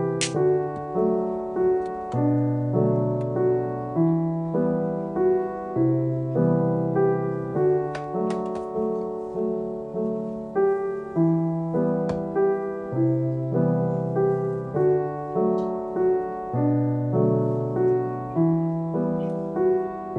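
Background solo piano music, a gentle tune with regular chords, and a few faint clicks.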